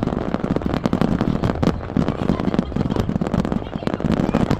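Fireworks display going off in a dense, continuous barrage, many sharp bangs and cracks a second over a low rumble.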